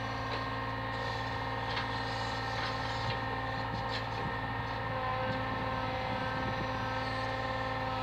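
Brick delivery lorry's diesel engine running steadily to power its truck-mounted crane, with several steady tones over the drone and a few faint clicks as the crane works.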